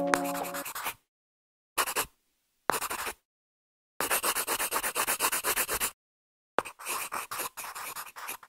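Tail of background music fading out, then scratchy sketching strokes of a drawing tool on paper. The strokes come in several short runs separated by dead silence, the longest run about two seconds.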